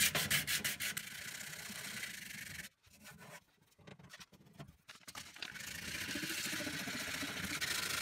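100-grit sandpaper rubbed by hand over the painted steel floor of a microwave's cavity, quick back-and-forth scratching strokes that scuff off loose, peeling paint and rust before repainting. The sanding stops for a couple of seconds about a third of the way in, then resumes as a steadier scratching.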